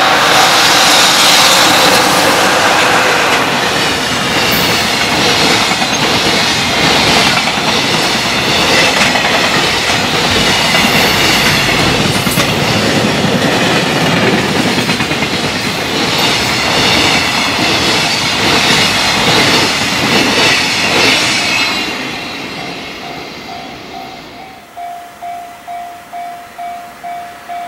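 A high-speed freight train passing close by at speed: a loud rush of wheel and air noise with a rhythmic clickety-clack of wheels over the rail joints, fading away after about 22 seconds. Near the end a level-crossing alarm rings in a steady pulse.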